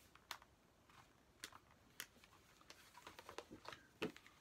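A CD album's packaging being handled and opened up: a few soft, separate clicks and taps with light rustling.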